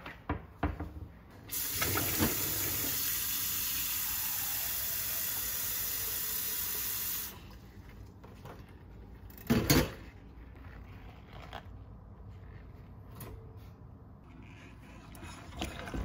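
Kitchen tap running into a sink for about six seconds, then shut off abruptly. This is followed by light clatter and one sharp knock.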